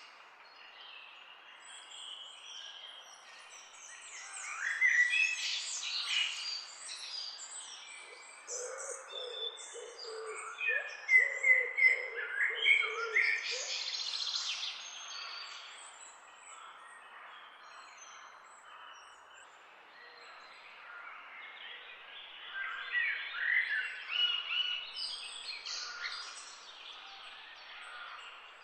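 Several birds chirping and singing in short overlapping calls, busiest about four to seven seconds in and again around eleven to fifteen seconds. A series of lower, repeated notes comes in under the chirps in the middle.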